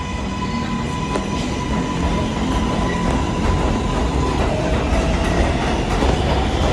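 New York City subway 4 train running through the station, a steady rumble with wheels clacking over the rail joints. A steady whine holds one pitch, then drops lower about four seconds in.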